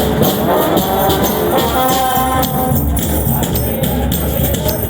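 Street brass band playing: horns holding notes over a busy beat of drums and percussion.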